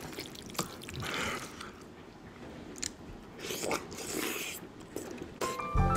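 Close-miked eating sounds of a person stuffing sauce-coated king crab leg meat into the mouth and chewing it, with small wet clicks and smacks. Music comes in near the end.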